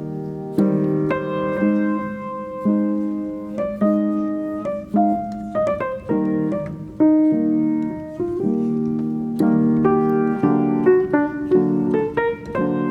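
Background music: piano playing a melody of struck notes that ring and fade, picking up to quicker notes in the second half.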